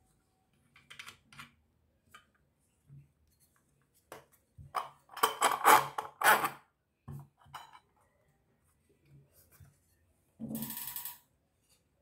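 Metal clinks, knocks and scrapes as the ball-shaped metal cap on the bottom of a chandelier is twisted off its threaded rod. The loudest knocks cluster about five to six seconds in, and a short ringing metal rattle comes near the end.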